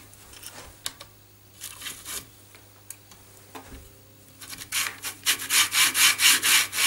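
Steel Y rails of an AxiDraw pen plotter sliding back and forth through the carriage's linear bearings: a few light clicks and short scrapes, then from about four and a half seconds in a fast run of even rubbing strokes, about three a second, as the slide is worked to check for a smooth fit.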